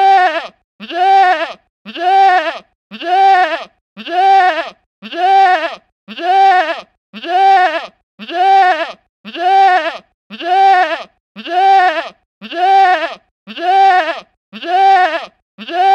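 Goat bleating: a short bleat that rises and then falls in pitch, repeated about once a second, every call the same.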